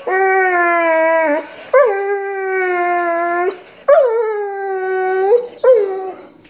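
Pit bull howling in long drawn-out notes: three held howls of about a second and a half each, then a short one near the end. Several of them start higher and slide down to a steady pitch.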